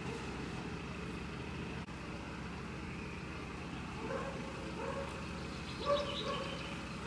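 A vehicle engine idling steadily, with short high-pitched whimpers from a dog about four seconds in and again just before the end, the second the loudest.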